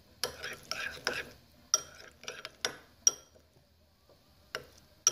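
Metal spoon stirring shampoo-and-salt slime in a ceramic bowl: stirring and scraping for about the first second, then several sharp, separate clinks of the spoon against the bowl, each with a short high ring.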